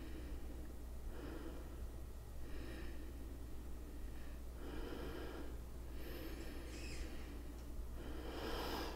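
A person breathing slowly and audibly, mostly through the nose. There are about five soft, drawn-out breaths over a faint steady low hum.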